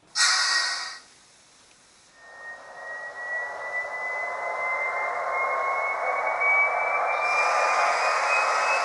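Sound decoder in an HO-scale model RTG gas-turbine train, played through the model's speaker. It starts with a short burst of air hiss lasting about a second. From about two seconds in, a traction turbine spools up: a whine rising slowly in pitch over a rushing noise that grows louder, with a higher hiss joining near the end.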